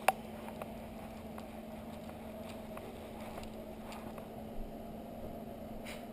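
Handling noise picked up by a GoPro strapped to a puppy's back: one sharp knock as she is let go, then faint scattered ticks and rubs as she moves, over a steady low hum.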